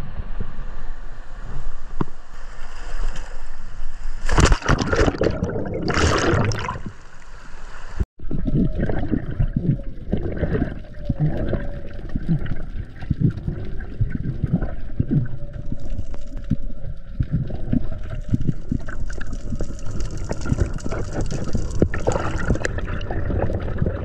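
Sea water surging and splashing over shoreline rocks, with two loud splashes in the first few seconds. After an abrupt cut, the sound is recorded underwater: muffled gurgling, bubbling and knocking of moving water.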